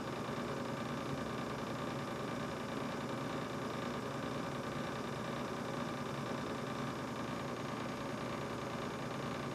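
Brand-new GE refrigerator running: a steady hum and whir of compressor and fan, with several constant tones over a hiss. This is the noise the owner has found troubling in a new fridge.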